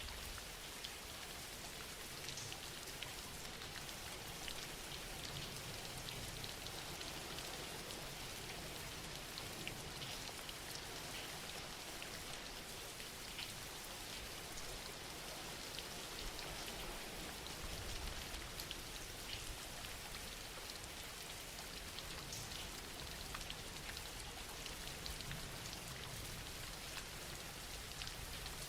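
Steady, gentle rainfall: an even hiss of rain with scattered small drop ticks, a soft ambient rain sound bed.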